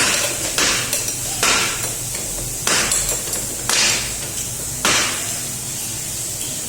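About six hammer blows on metal, irregularly spaced about a second apart, each with a short ring, ending about five seconds in: a mechanic knocking the electric scooter's wheel loose to take it off and check the brake shoes.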